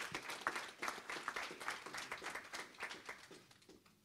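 A small audience applauding, the clapping thinning out and dying away near the end.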